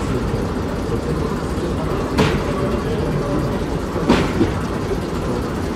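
Locomotive moving slowly onto a turntable: a steady low rumble, with a sharp clank about two seconds in and two more close together about four seconds in.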